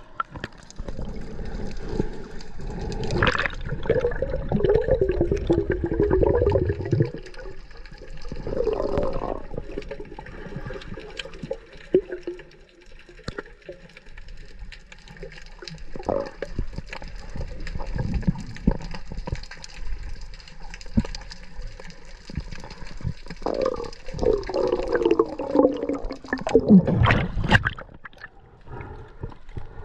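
Water sloshing and gurgling around a snorkeller's camera, with scattered clicks and three louder stretches of wavering gurgling.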